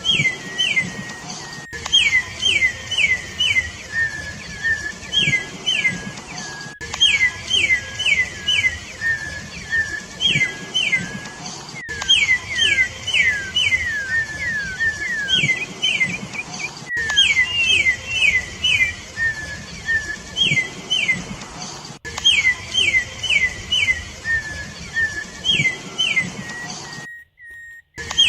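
Campo troupial (corrupião) singing: quick groups of three to five clear whistled notes, each sliding down in pitch, repeating every few seconds. The sound cuts out for about a second near the end.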